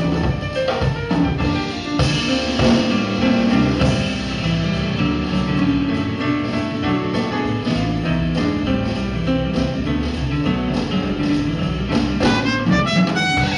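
A band playing music, with sustained melodic notes over a steady drum beat.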